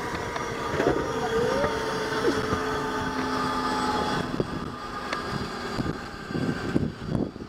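Small propeller plane's engines running with a steady droning tone over a broad rumble as the plane taxis; the tone fades about four seconds in.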